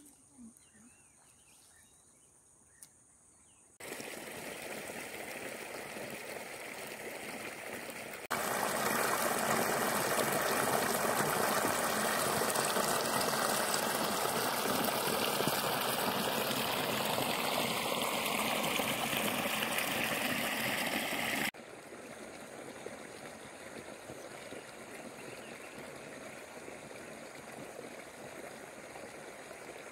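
Running water gushing and bubbling into shallow flood water, a steady rushing hiss. It comes in abruptly about four seconds in after a quiet stretch with a few faint clicks, gets louder at about eight seconds, and drops back to a softer rush at about twenty-one seconds.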